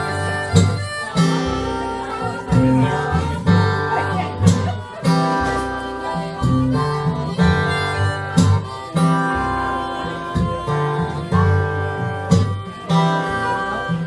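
Acoustic blues played live: an acoustic guitar picks a repeating low riff while a harmonica plays long held and bent notes over it.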